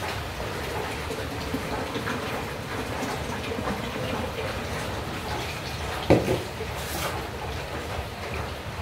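Water running from a tap into a metal pot, a steady splashing rush, with one sharp loud knock about six seconds in.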